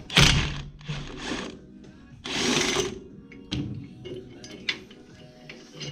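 A power tool running in three short bursts as bolts come out, followed by a few sharp metal clicks and knocks.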